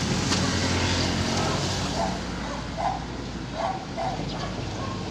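Backhoe's diesel engine running steadily under load, with a few short high-pitched sounds from about two seconds in.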